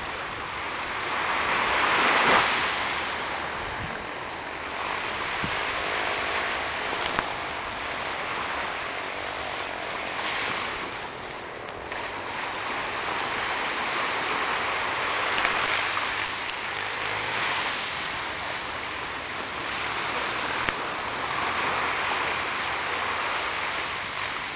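Small sea waves breaking and washing onto a sandy beach, the surf noise swelling and easing every few seconds, loudest about two seconds in.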